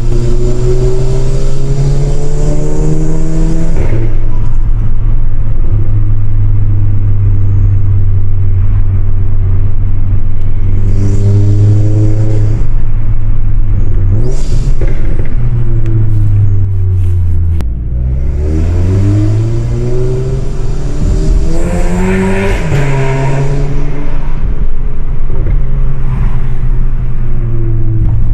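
Stage 3 tuned VW Golf GTI Mk7 with a decatted, straight-piped exhaust, driving: the 2.0-litre turbocharged four-cylinder revs up, drops sharply about four seconds in at a shift or lift-off, and then holds steady. The revs fall away a little over halfway through, pull hard up to a peak a few seconds later, and ease back.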